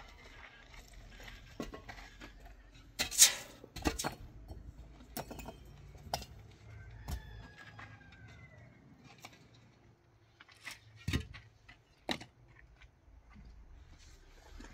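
Irregular knocks and clinks of hard objects being handled. The loudest knock is about three seconds in, with a few more scattered through the rest.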